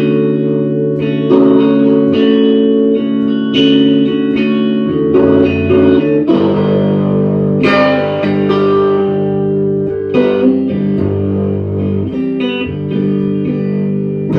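Instrumental guitar music with no singing: plucked notes ringing over held chords, with the chords changing every few seconds.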